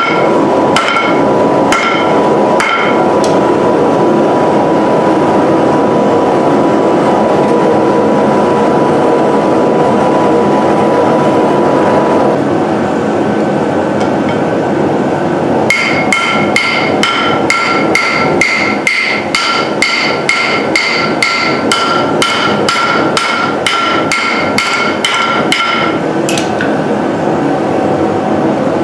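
Hand hammer striking a red-hot steel blade blank on a steel plate anvil, each blow ringing: a few strikes, a pause of about twelve seconds, then a fast run of blows at about three a second for about ten seconds. A steady roar from the lit forge runs underneath.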